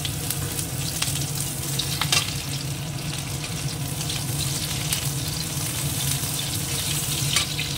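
Chopped onion sizzling steadily in hot oil in a kadai, stirred with a metal spatula that clicks against the pan a few times.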